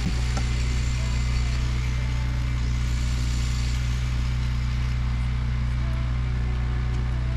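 Steady low drone of a running motor, unchanging at an even level, with a light click about as the sound begins.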